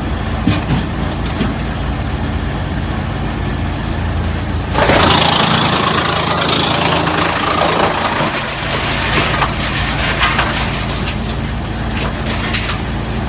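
Drum wood chipper running with a steady hum; about five seconds in a log goes into the drum and is chipped, a loud burst of crunching and cracking lasting several seconds, after which the machine runs on with scattered cracks.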